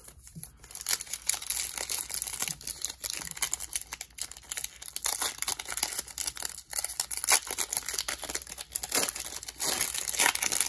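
Foil wrapper of a Panini Revolution basketball card pack crinkling and crackling as it is handled and torn open at the top seam.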